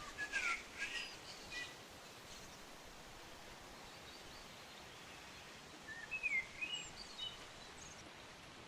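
Birds chirping over a steady outdoor hiss: a quick flurry of short, pitch-sliding chirps at the start and another about six seconds in.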